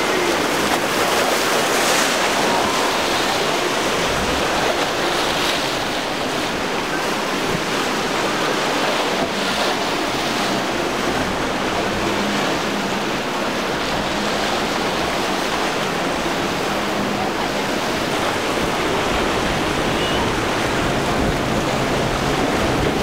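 Waves breaking and water rushing in rough surf, steady throughout, with wind on the microphone.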